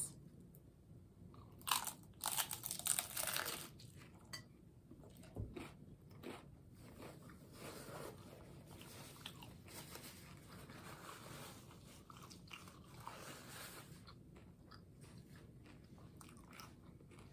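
Close-up eating: crunchy bites into a taco and chewing. The loudest crunches come about two to four seconds in, followed by quieter, irregular chewing.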